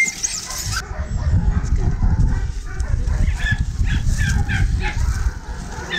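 Dogs in a shelter barking and whimpering: short repeated calls over a steady low rumble, which is the loudest sound here.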